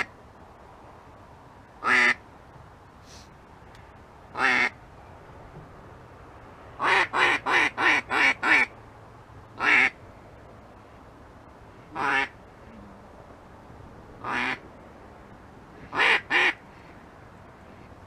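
Duck quacks, loud and clear, in mallard style: single quacks every two or so seconds, a quick run of six about halfway through, and a close pair near the end.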